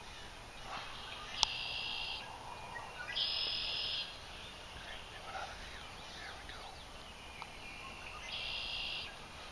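Wild turkeys gobbling from the roost at a distance: three separate gobbles of under a second each, the middle one the loudest.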